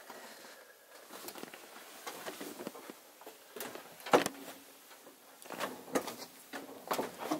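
Footsteps and knocks of someone stepping out of a camper door and down its metal entry steps onto dirt, with one sharp knock about four seconds in and a few lighter ones near the end.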